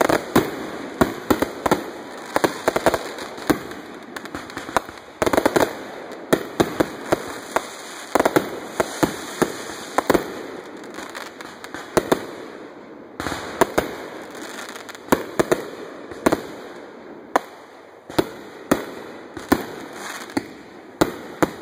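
Fireworks display: aerial shells bursting in a rapid run of sharp bangs, often one or two a second, with stretches of dense crackling.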